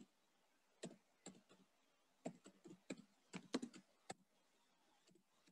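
Faint keystrokes on a computer keyboard as a word is typed: an uneven run of about a dozen clicks that stops about four seconds in.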